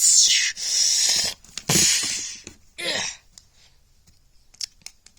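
Breathy, hissing mouth-made sword-swing sound effects: about four whooshing bursts in the first three seconds, the last ending in a short falling voiced note. Then a few faint clicks near the end.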